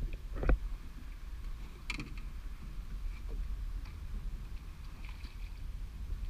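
Water lapping against a small skiff's hull, with a steady low rumble of wind on the microphone; a sharp thump about half a second in and a lighter click near two seconds.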